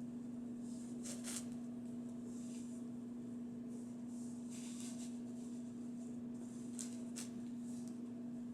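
A few brief, faint rustles from handling a small silicone doll, over a steady low hum.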